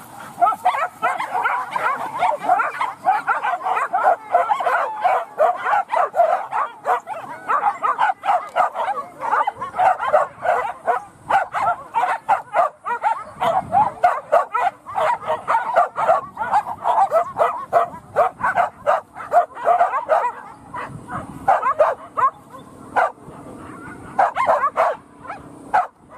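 Hunting dogs barking and yelping in a rapid, unbroken stream, several barks a second, thinning out and stopping just before the end.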